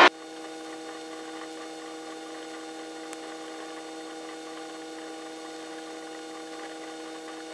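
Steady electrical hum with several evenly spaced tones in a helicopter's headset intercom feed while no microphone is open, with a faint tick about three seconds in.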